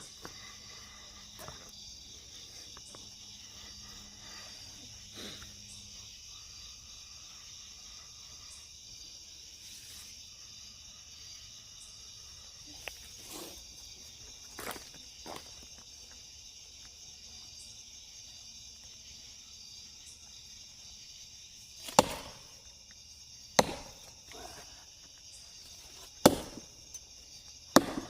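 Night insects chirring steadily, with a few faint knocks. About 22 seconds in, a double-bit axe begins biting into the trunk of a dead tree: four sharp chops in about six seconds.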